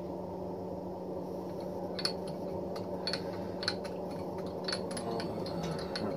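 Jet JMD-2S milling machine table being moved along under a dial test indicator: light, irregular metallic clicks from the feed mechanism, starting about two seconds in, over a steady low hum.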